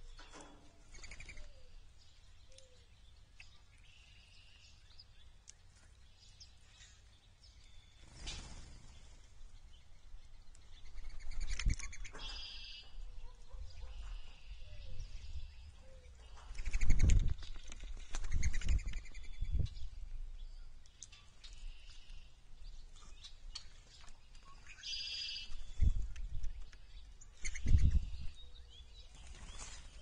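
Wild songbirds calling and singing around a backyard feeder, with a short rapid trill heard twice about twelve seconds apart. Several low fluttering thumps of wingbeats as birds land and take off at the platform feeder, the loudest about halfway through.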